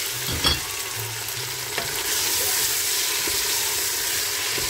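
Raw chicken pieces and chopped onions sizzling in hot oil in a steel pot while a wooden spoon stirs them, with a knock of the spoon against the pot about half a second in. The sizzle gets louder about two seconds in as the chicken is turned into the oil.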